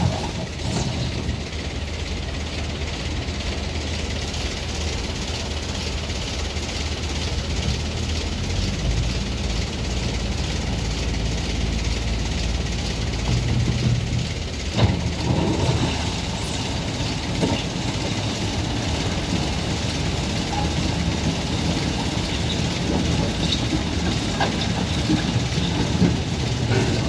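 Heavy vehicle engines running steadily in slow traffic, with a single sharp knock about halfway through.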